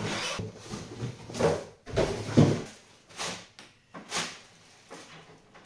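Cardboard packaging being lifted, scraped and set aside, then a plastic bag crinkling as it is pulled off a radio-controlled truck: a run of short handling sounds, quieter towards the end.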